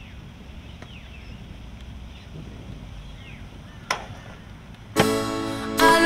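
Faint outdoor background with one sharp click a little before the four-second mark, then guitar music starts loudly about five seconds in with a strum.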